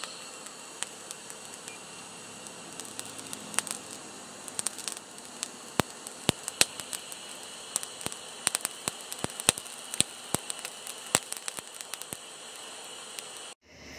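Charcoal forge fire crackling and popping as the cleaver blank heats in the coals, with irregular sharp snaps over a steady hiss. The sound cuts off abruptly near the end.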